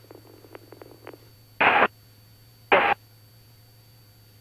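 Two short, loud bursts of radio static about a second apart, like squelch tails of a transmission on the aircraft's radio. A low steady hum lies under them, and faint broken radio chatter sounds in the first second.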